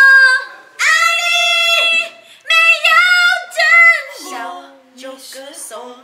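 Women singing a Mandarin love song together without accompaniment, in long held phrases. Near the end they drop softer and lower.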